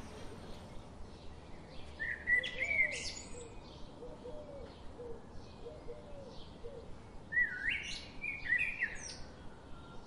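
Small aviary finches chirping in two quick bursts of high, bell-like notes, about two seconds in and again near eight seconds, with faint lower notes repeating in between.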